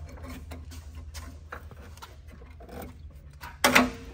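Light metallic clicks and rattles of a truck's AC condenser being worked loose from its mounts, then a louder, short clattering scrape near the end as it comes free. A steady low hum runs underneath.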